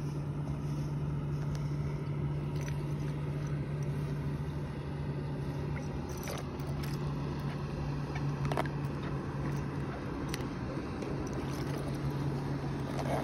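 A steady low mechanical hum runs throughout, with a few sharp clicks and knocks from handling a plastic fish bucket and its mesh lid.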